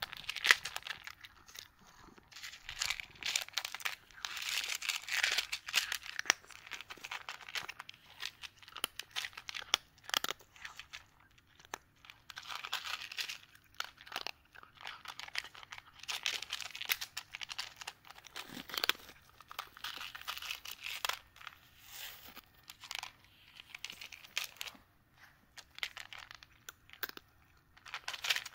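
A cat crunching dry kibble: irregular crisp crunches and clicks, coming in clusters with short pauses between mouthfuls.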